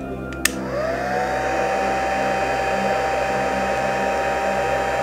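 Heat gun switched on with a click; its fan spins up with a rising whine, then runs steadily, blowing air with a high, even whine, heating heat-shrink tubing over a soldered wire joint.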